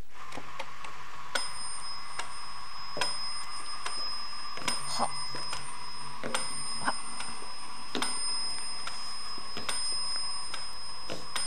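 Pendulum metronome ticking, a sharp tick about every second and a half with a faint ring after it, over the steady hum of a running conveyor belt.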